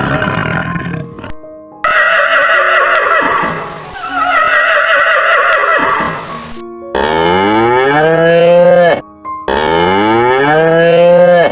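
Farm animal calls over background music: a long rough call in the first half, then two loud drawn-out calls near the end, each rising in pitch and then held.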